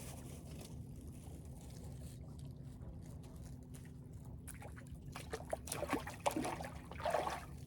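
Sea water lapping and trickling at the shore, with a steady low hum underneath. In the last two or three seconds, a run of clicks and knocks from things being handled.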